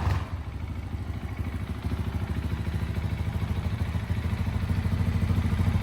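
Husqvarna Vitpilen 701's single-cylinder engine idling with a steady, even pulsing beat, settling after a pair of throttle blips.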